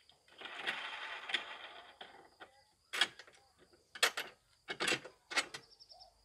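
Handling noise from mower parts or packaging: a scraping rustle for about two seconds, then four sharp clacks spread over the next few seconds.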